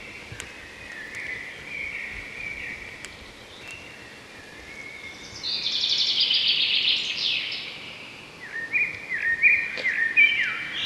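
Birds singing and calling: warbling notes, then a loud rapid trill about halfway through, and a string of short falling notes near the end.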